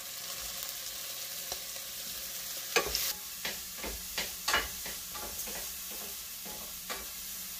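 Chopped mushrooms and onions sizzling in oil in a stainless steel pan. A wooden spatula stirs them, scraping and knocking against the pan in a quick run of strokes about three seconds in and once more near the end.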